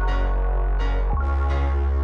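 Electronic background music: sustained synthesizer chords over a heavy bass, the bass note changing about a second in.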